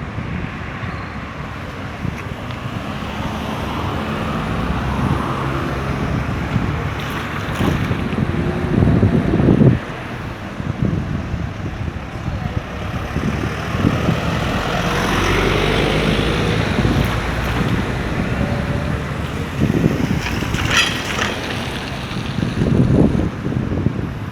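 Street traffic with wind buffeting the microphone: several vehicles pass close by, each swelling up and fading, with the loudest pass about nine seconds in.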